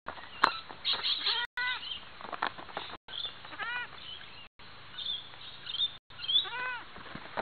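Goat kids bleating: several short, wavering bleats, with clear ones a few seconds in and again near the end. Sharp thumps from the kids' hooves landing on the trampoline mat, the loudest about half a second in.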